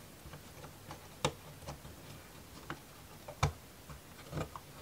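Sharp clicks and taps of thin laser-cut wooden model-kit pieces being handled and fitted together, a few at irregular intervals, the loudest about a second in and another about three and a half seconds in.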